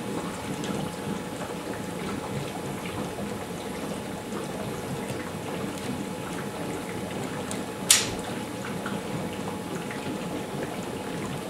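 144-plate HHO electrolysis cell bubbling and fizzing steadily as it makes hydroxy gas at about 78 amps, with a faint steady hum. A single sharp click about eight seconds in.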